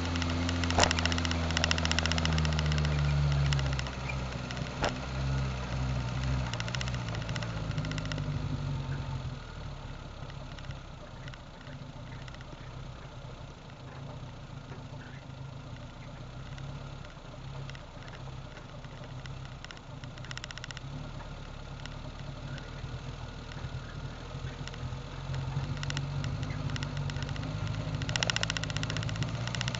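Suzuki Samurai engine running under way. It is loudest at first, eases off about four seconds in and again near nine seconds to a quieter steady run, then builds again near the end. There is a sharp knock about a second in and another about five seconds in.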